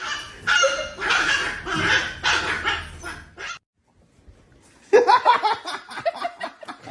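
A dog barking in a series of bursts, pausing for about a second midway, then a quicker run of short barks.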